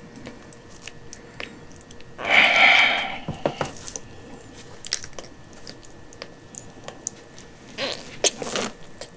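Small clicks, wet squishes and rustles of gloved hands, syringe and feeding tube handling a newborn kitten during tube feeding, with a louder rustling noise about two seconds in and two short ones near the end.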